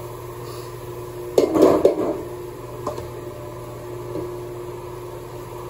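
A brief clatter of knocks, like kitchen utensils or the phone being handled, about a second and a half in, then a single click, over a steady hum.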